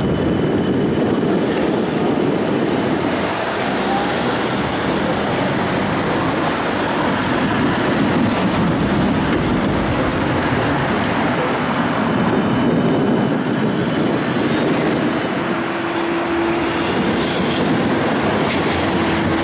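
Siemens Combino tram running along a city street, heard from inside the passenger cabin: a steady rumble of wheels and running gear. A thin high tone sounds early on, and a steady low hum comes in about three-quarters of the way through.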